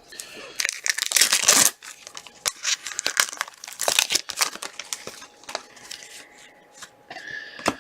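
A trading card pack wrapper being torn open and crinkled, loudest about a second in, followed by scattered rustles and light clicks as the cards are handled.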